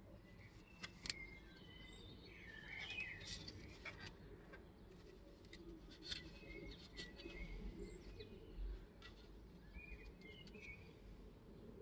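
Faint birds chirping now and then, with a few light clicks from 3D-printed plastic impeller parts being handled.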